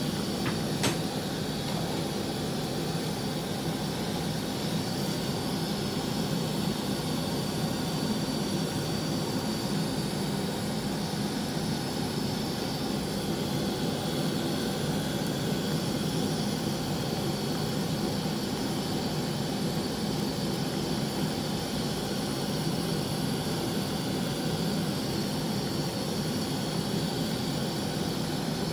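Steady, even rushing noise from the kitchen stove under a pot of sinigang. A light clink of the ladle against the pot comes about a second in.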